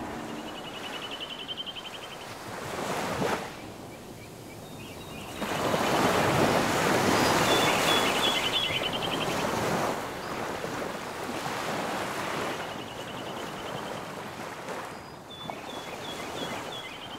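Ocean waves washing on the shore, swelling loudest in the middle and easing off again. Short, rapid, high chirping trills come and go three times over it.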